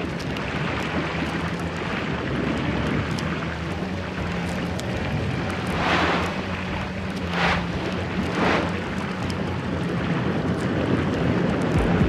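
Churning sea water with a steady low hum beneath it, and three louder rushes about halfway through, a second or so apart.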